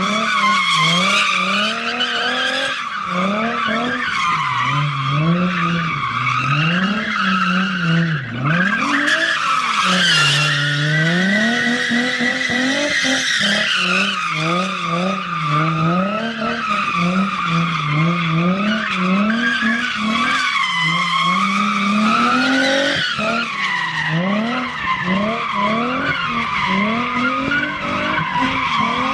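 A car drifting: tyres squealing without a break while the engine is revved up and down over and over, about once a second. The squeal is loudest around the middle.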